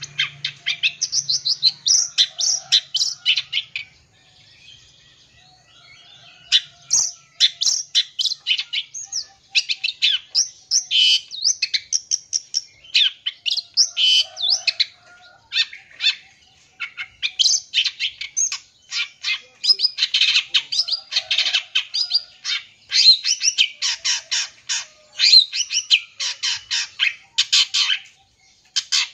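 Long-tailed shrike (cendet) singing a fast, varied song of chirps, trills and mimicked calls of other birds, with a brief lull about four seconds in.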